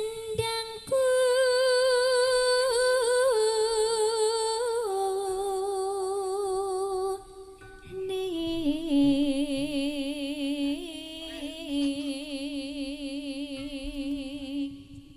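A sinden, a Javanese female singer, sings a solo unaccompanied line of long, wavering held notes. The line runs in two phrases, each stepping down in pitch, with a short break about halfway through.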